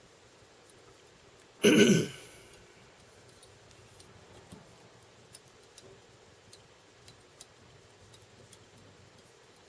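A person clearing their throat once, briefly, about two seconds in. Faint scattered ticks follow as fly-tying thread is wrapped around a hook held in the vise.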